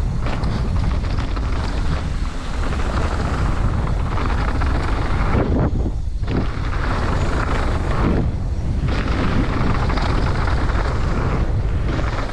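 Wind buffeting the microphone over the rumble and rattle of a mountain bike riding fast down a dirt bike-park trail. The higher noise drops away briefly about 6 and 8.5 seconds in.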